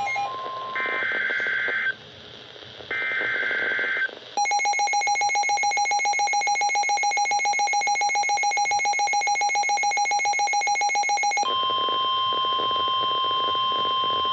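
Emergency Alert System tones announcing a severe thunderstorm warning. First come short screeching digital data bursts of the SAME header, then a fast-pulsing buzzing alarm tone for about seven seconds, then a steady single high tone for about three and a half seconds.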